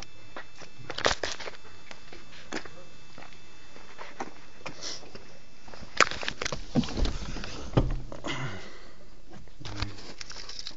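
Scattered clicks, knocks and rustling of someone getting into a car, with two heavier thumps about six and eight seconds in.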